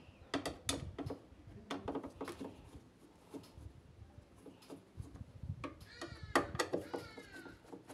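Scattered clicks and knocks of plastic parts and a screwdriver being worked on the top of a washer dryer. Near the end comes a high, pitched sound that falls in pitch several times.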